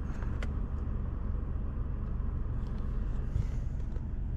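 Steady low hum of a car's running engine heard inside the cabin, with a couple of faint clicks near the start.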